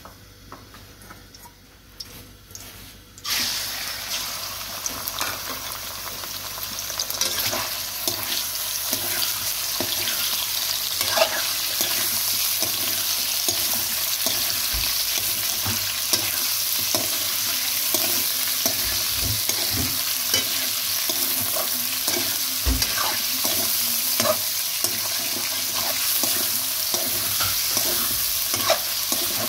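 Raw chicken pieces frying in hot oil in a steel pot: the sizzle starts suddenly about three seconds in as the chicken goes in, then runs on steadily while a metal slotted spoon stirs the pieces, with frequent scrapes and clicks against the pot.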